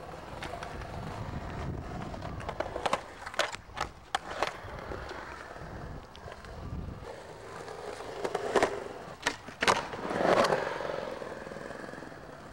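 Skateboard wheels rolling over skatepark concrete, a steady rumble broken by a scatter of sharp clacks from the board. The loudest clacks come between about eight and ten and a half seconds in.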